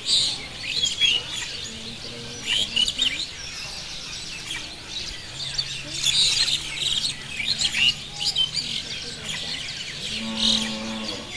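Many small birds chirping and twittering, a dense run of short high calls. A faint low steady hum runs through the middle, and a short low call sounds near the end.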